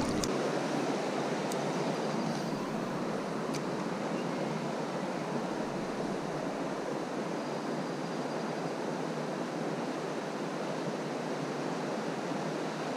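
Steady, even rushing of a small stream's flowing water, with a couple of faint ticks in the first few seconds.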